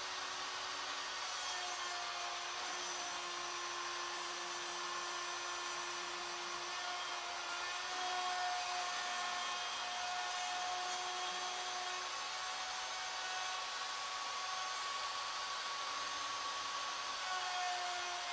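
Plunge router on a CNC ornamental wood mill running under program control, its bit cutting into square wooden leg stock: a steady high motor whine over cutting noise.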